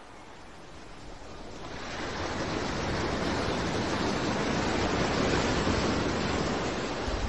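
Open-sea waves and wind rushing over the microphone, growing louder over the first couple of seconds and then steady.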